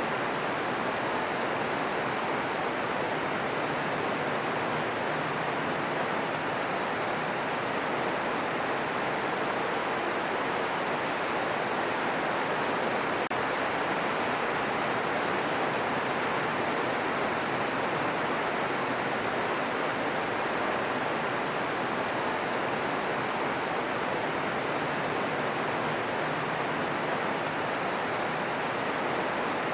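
Steady green noise for relaxation: a constant, even hiss strongest in the middle range, with no breaks or changes.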